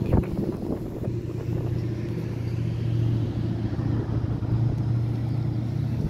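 Ford Falcon sedan engine running at a slow, steady cruise as the car rolls past, a low even engine note. A brief thump right at the start.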